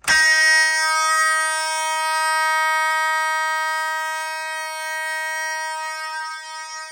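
Simplex 2901-9806 vibratone mechanical fire alarm horn sounding continuously, a very loud, steady buzzing tone that starts suddenly and holds without a break.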